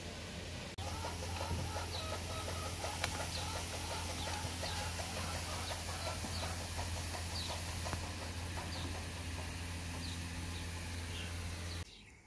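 Farmyard chickens clucking, with a small bird's high chirp repeating about every three-quarters of a second over a steady low hum. The sound cuts in about a second in and drops away near the end.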